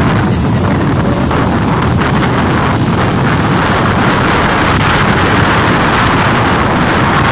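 Radio-controlled model speedboats running fast across the lake, their high motor noise swelling toward the end, under heavy wind buffeting on the microphone.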